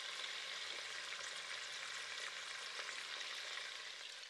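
Mutton pieces frying in oil and masala in a pressure cooker during the bhuna (browning) stage: a steady sizzle with a few faint pops, easing slightly near the end.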